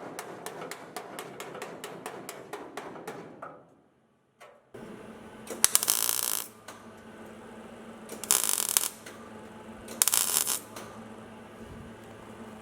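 Workshop sounds. First comes a run of rapid, evenly spaced clicks, about four a second, which cuts off after about three and a half seconds. After a short gap a steady hum comes in, with three short bursts of harsh hissing noise, each under a second long, about two seconds apart.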